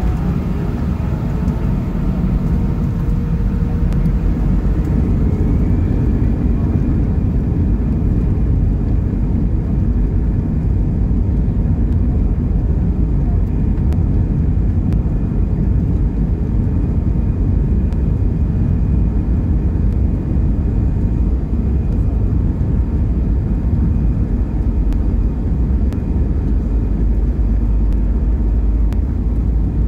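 Cabin noise of an Airbus A320-family airliner rolling on the ground: a steady, loud rumble of jet engines and wheels on the pavement. A faint engine whine rises in pitch in the first few seconds.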